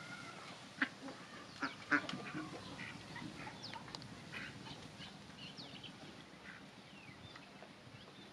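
Domestic ducks calling as they feed: a few loud short quacks about one to two seconds in, then many short high calls scattered through the rest.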